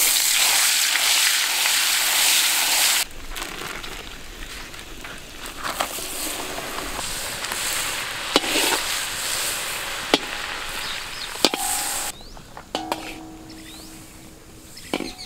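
Butter sizzling as it melts in a hot iron kadai over a wood fire. The sizzle is loud at first and drops to a quieter, steady sizzle about three seconds in, with a few sharp clicks from about eight seconds in.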